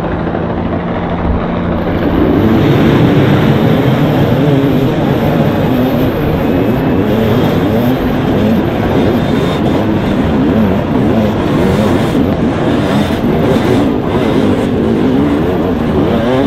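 A pack of hard enduro dirt bikes running together off a mass start. A steady drone for the first two seconds, then the level jumps as the engines are revved hard and the pitches waver and overlap.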